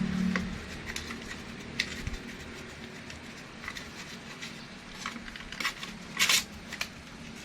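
Scattered light clicks and taps of small telolet horn parts being handled during cleaning, with a short louder burst of rattling about six seconds in. A passing vehicle fades out at the very start.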